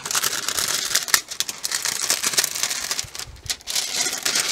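Clear plastic cover film on a diamond painting canvas crinkling as it is lifted and handled, with irregular small crackles.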